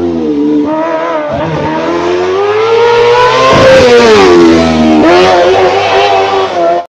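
Race car engine revving hard, its pitch climbing to a peak about halfway, dropping, then rising again as the driver accelerates and lifts through the slalom. The sound cuts off suddenly near the end.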